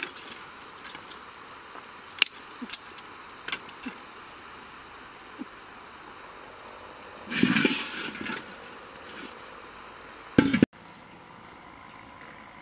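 Handling at a stick fire on river stones: a few light clicks and knocks, a short louder rustle or scrape about seven seconds in, and a sharp knock a little after ten seconds, over a steady faint outdoor background.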